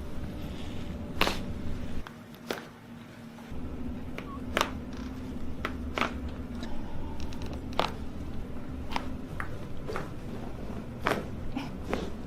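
Joints cracking during a chiropractic adjustment: about a dozen sharp pops and clicks, unevenly spaced, over a steady low hum.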